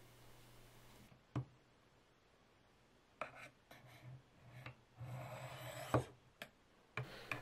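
Steel blade of a Spyderco Tenacious folding knife drawn lightly down the flat faces of a Spyderco Sharpmaker's fine white ceramic stones: faint scrapes with light clicks as the blade meets the stone. This is the final fine honing stage. A sharp click comes about a second in, and a longer rasping stroke runs about five seconds in, ending in a click.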